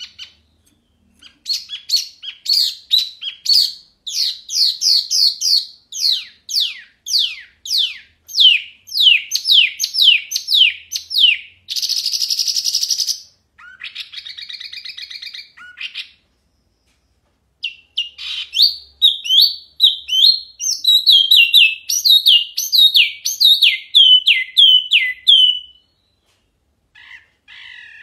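Caged wambi mini bird singing loud and clear, in quick runs of falling whistled notes. About halfway through comes a harsh rattling burst and a buzzy chatter, then a short pause before another long run of falling notes.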